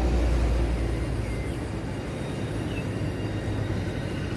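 Low diesel engine rumble of a TRA DR3000 diesel multiple unit moving away. It fades about a second in and leaves a quieter, steady low rumble.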